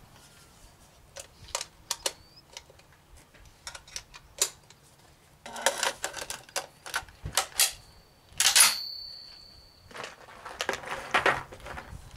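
Clicks and metallic clatter of an M1A rifle being handled and readied for firing, with a sharp metal clack about eight and a half seconds in that rings on with a high tone for a second or so.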